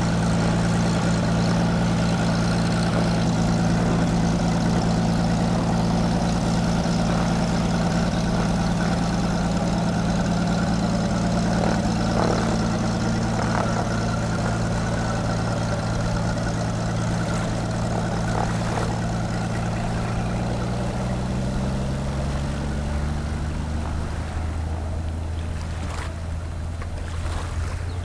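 Cessna 185 Skywagon floatplane's piston engine and propeller running steadily as it taxis on the water. About three quarters of the way through, the engine's pitch slides lower as the plane heads away.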